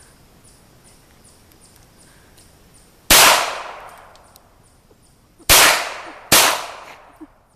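Three shots from a .22 LR pistol: one about three seconds in, then two more close together about a second and a half later, each a sharp crack that rings out and dies away over about a second.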